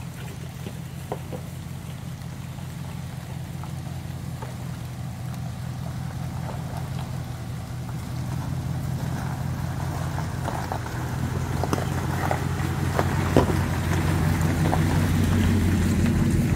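Dodge Ram 1500 pickup's engine running steadily at low speed as the truck crawls over a rocky dirt trail, growing louder as it approaches and passes close by. Scattered clicks and crunches of stones under the tyres.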